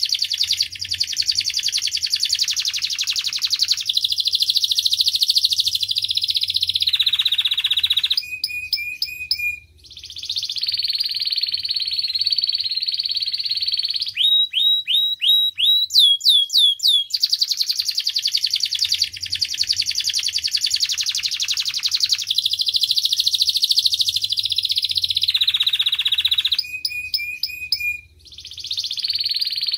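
Domestic canary song: long, very fast trills broken by short chirps and a quick run of falling whistles. The same sequence of phrases comes round again about eighteen seconds later.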